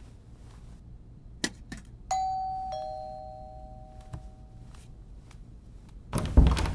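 Two-tone doorbell chime: a higher ding followed about half a second later by a lower dong, each ringing on and fading slowly. Just before it come two light clinks, a steel pot being set down on a hard table top. Near the end there is a loud thump with a rush of noise.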